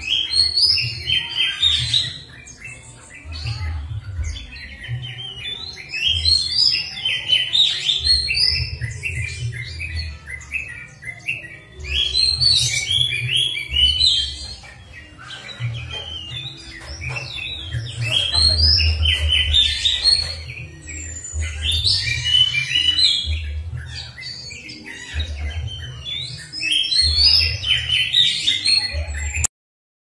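Songbird song played as a pancingan lure track to get caged kacer, cendet and murai singing: fast runs of chirps, whistles and harsh notes in repeated phrases. The track drops out for a moment just before the end.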